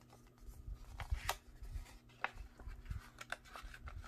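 Paper envelope being handled and opened by hand: paper rustling and sliding against paper, with irregular crisp crinkles and taps.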